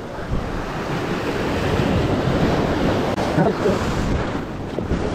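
Ocean surf breaking and washing over a rocky shore. The rush of white water swells over the first few seconds, then eases off near the end.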